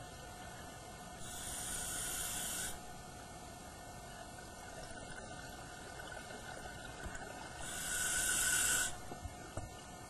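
Scuba regulator hissing as the diver breathes in, twice, each inhalation about a second and a half long and some six seconds apart, heard underwater.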